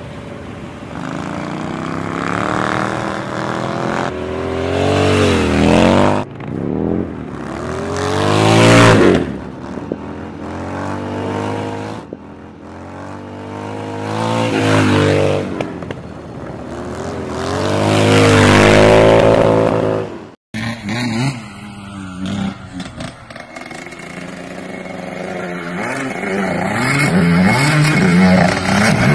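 Motorcycle engine revving hard in four rising-and-falling passes as the bike is wheelied on ice. After a sudden cut about two-thirds through, a dirt bike engine revs unevenly, building louder toward the end.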